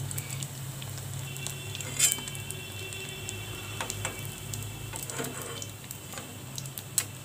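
Hot olive oil crackling softly in an aluminium kadhai as fried chowmein pakoras are lifted out with a metal spatula. The spatula knocks sharply against the pan about two seconds in, leaving a brief metallic ringing, and knocks again near the end.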